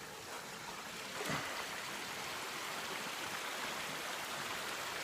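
Water of a small waterfall trickling and running over rocks: a steady rushing hiss that grows a little louder in the first second.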